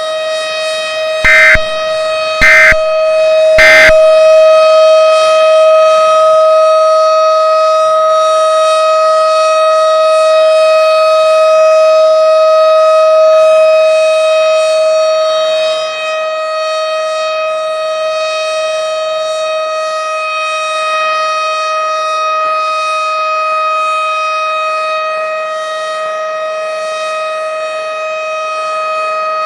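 Siren sounding one steady, unwavering pitch with a rich stack of overtones, held throughout. Near the start, three short, loud bursts sound about a second apart over the tone.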